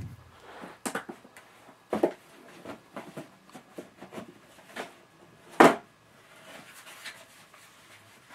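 DVD box-set cases being handled and set down: a series of irregular knocks and rubbing sounds, the loudest about five and a half seconds in.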